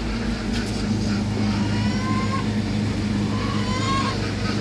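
Gas-engine log splitter running steadily with a low hum. Two short squawks from agitated poultry about two and four seconds in.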